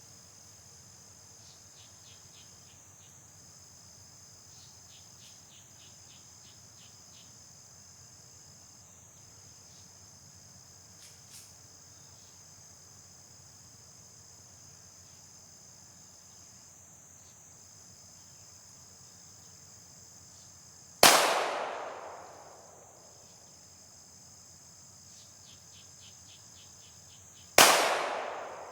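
Two pistol shots about six and a half seconds apart, each a sharp crack followed by a trailing echo, over steady insect buzzing.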